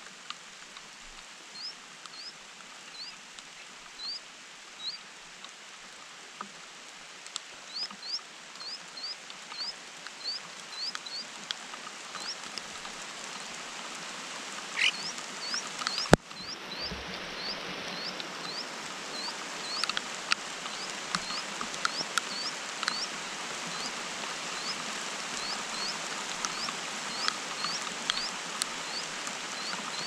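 Steady rain hissing and pattering on leaves, growing heavier about halfway. Over it, songbird nestlings give thin, high begging peeps, short upward chirps about twice a second. There is one sharp knock about halfway.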